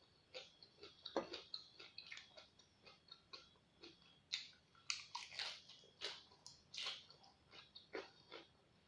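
Close-up chewing and crunching of raw vegetables: quick, irregular crisp crunches with wet mouth sounds, a few louder bites about a second in and in the middle.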